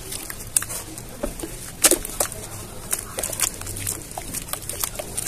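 Hands squishing and slapping wet cement slurry in a plastic bucket: irregular wet squelches and splats, with a louder splat about two seconds in.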